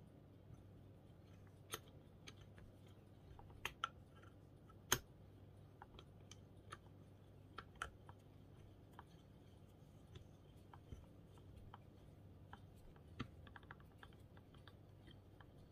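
Faint, scattered metallic clicks and taps of slip-joint pliers working the wheel nut off an old bench grinder's shaft, a few sharper clicks standing out in the first half, over a faint steady low hum.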